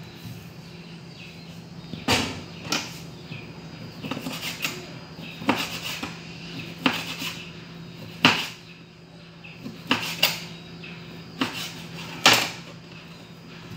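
Knife chopping chunks of meat on a plastic cutting board: a series of sharp, irregularly spaced knocks, about one a second, as the blade comes down through the meat onto the board.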